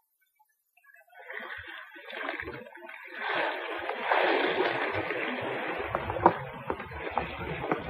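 Seawater splashing and sloshing, starting about a second in and growing louder from about three seconds, with a few scattered knocks.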